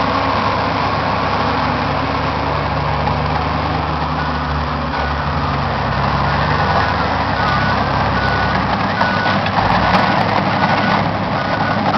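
Heavy diesel engines of a Caterpillar 735 articulated dump truck and a John Deere 350D LC excavator running steadily as the loaded truck pulls away from the excavator. From about four seconds in, a backup alarm beeps at a steady pace.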